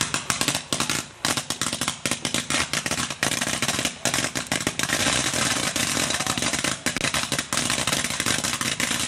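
Fireworks going off in a dense, rapid run of sharp pops and crackles, with no let-up.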